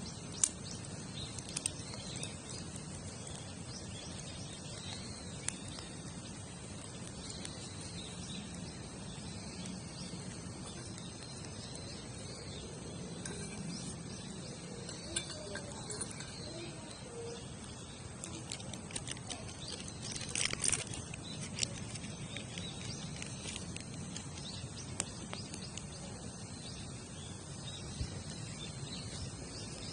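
Wood campfire burning with a steady low rush and a few scattered sharp crackles and pops, a cluster of them about two-thirds of the way through. Insects chirp faintly behind it.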